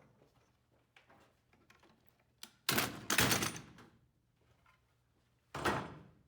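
Wood and clamps being handled during a board glue-up, with a cluster of knocks and scrapes a little under three seconds in and a shorter one near the end.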